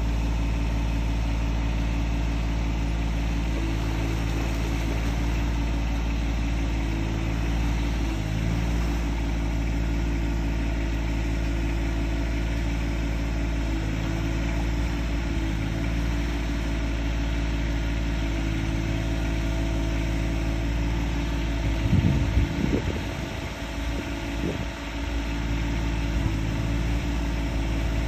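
Aquatic weed harvester's engine running steadily at an even speed while the harvester unloads cut tapegrass into a bin. About 22 seconds in there is a brief irregular thump and rumble, and the engine sound then dips a little for a few seconds.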